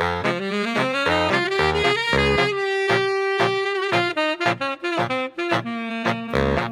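Background jazz music led by a saxophone over a walking bass line.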